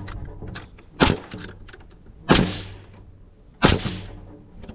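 Nails being driven into a wooden floor joist: three sharp strikes, about 1.3 seconds apart.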